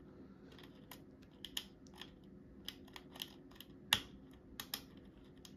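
Lock pick raking the pins of a Kwikset deadbolt's cylinder: small irregular metallic clicks, the loudest about four seconds in.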